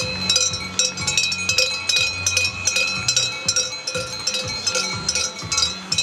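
Hand-held cowbells shaken by spectators, clanging continuously at several strikes a second with a bright ringing tone.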